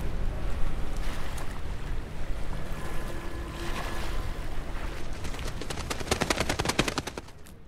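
Windy riverside ambience with a steady low rumble; about five seconds in, a rapid flurry of wing flaps as a flock of doves takes off, and the sound then fades away.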